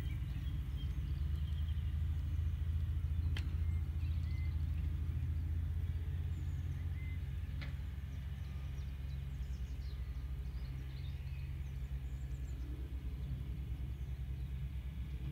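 Outdoor ambience: a steady low rumble throughout, with faint bird chirps and two sharp clicks, one about three seconds in and one about seven and a half seconds in.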